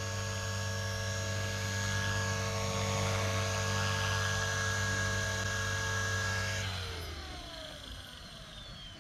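Electric motor and propeller of an E-flite P-51D RC plane running with a steady whine, then throttled off about seven seconds in, the pitch sliding down as the propeller spins down.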